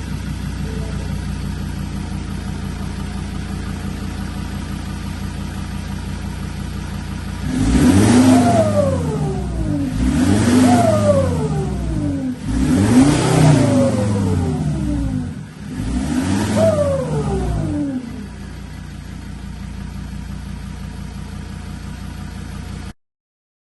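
Ford Ranger 3.2L five-cylinder turbo-diesel idling through its exhaust, then revved four times, each rev rising and falling back, before settling to idle again.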